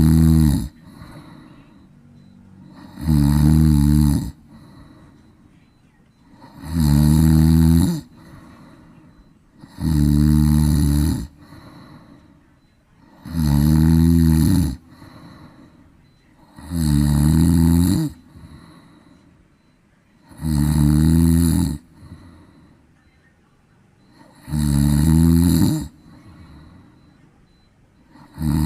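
Domestic cat snoring in its sleep while lying face down: a loud snore on each breath about every three and a half seconds, each lasting about a second, with quiet breathing in between.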